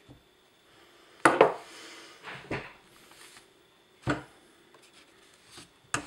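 Knocks and clatters of a Briggs & Stratton 5 HP carburetor's metal body and parts being handled and set down on a tabletop, with softer rubbing between. The loudest is a double knock about a second in, with smaller knocks about halfway and twice near the end.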